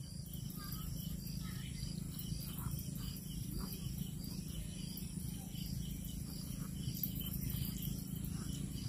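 Quiet background with a steady low hum and faint, evenly repeating high chirping of insects such as crickets. Soft strokes of a pen writing on paper.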